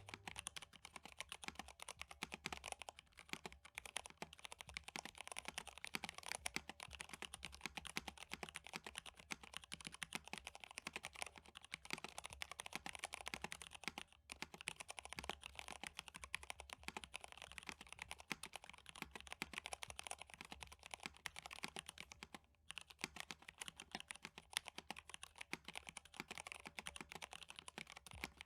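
Typing on a MONOKEI Standard mechanical keyboard with stock, unmodded Cherry MX Red linear switches: a fast, continuous run of keystrokes, with short pauses about 14 and 22 seconds in.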